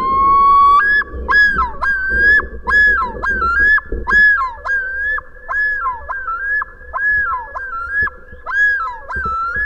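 Common loon giving the male's territorial yodel: one long rising note, then a run of loud, repeated two-note phrases, about two a second.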